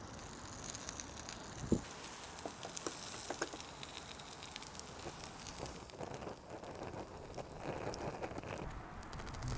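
Wood fire crackling, with scattered small pops and clicks over a soft steady hiss.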